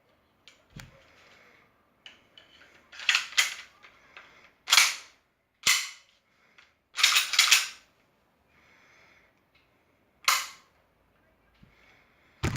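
Sharp metallic-and-polymer clacks from a Glock 17 pistol being handled: slide and parts snapping into place, about eight clacks at irregular gaps, some in quick pairs.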